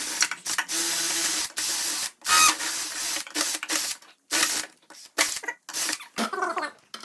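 Hissing spray in bursts, as when clogged vents are blown or sprayed clean: one steady blast of about two seconds, then a run of short puffs with brief gaps.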